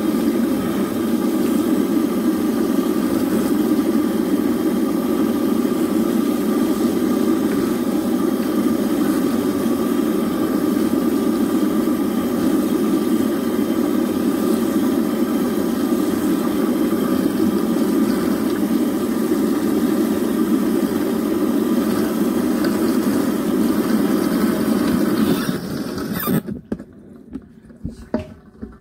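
Sink faucet running steadily, its stream pouring over long hair and into a stainless steel basin during a rinse. The water shuts off about 26 seconds in, leaving only a few small drips and wet sounds.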